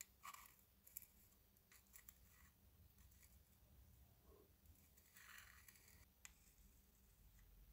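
Faint scraping and light taps of a small metal spatula working thick black putty onto a thin metal wheel-arch flare on a scale model car body. There are several short clicks early, then a longer scrape about five seconds in.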